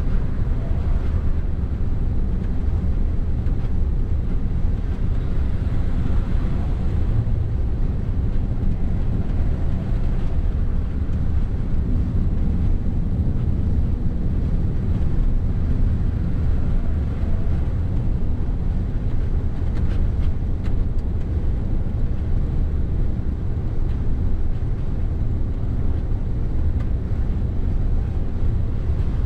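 Interior cab noise of a Mercedes Actros truck cruising on a motorway: a steady, low drone of the diesel engine and road noise that holds constant throughout.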